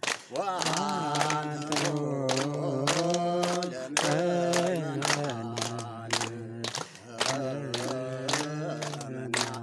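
Men chanting an Ethiopian Orthodox hymn (mezmur) in long, slowly gliding held notes, with hand claps keeping a steady beat of about two a second.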